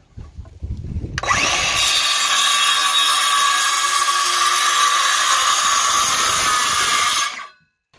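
Handheld circular saw cutting straight across a composite decking board. It starts about a second in and runs steadily at full cut, then cuts off suddenly near the end.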